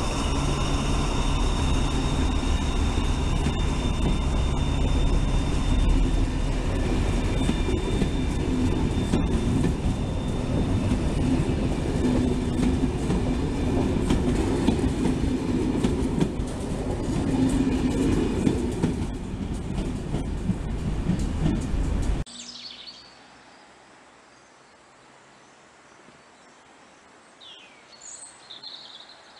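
Model train running past on the layout: a steady whine with a rumble beneath it, which cuts off abruptly about three-quarters of the way through. Only a faint background remains, with a few small chirps near the end.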